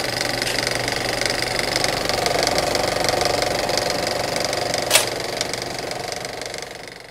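A small machine running with a fast, steady mechanical rattle. There is one sharp click about five seconds in, and the sound fades out over the last two seconds.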